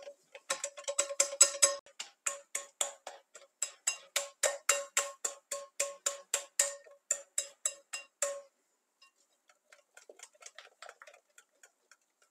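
Wire whisk beating thick batter in a glass bowl. The wires tap the glass about five times a second, and each tap rings the bowl. The strokes stop a little after eight seconds in, then come a few much fainter taps.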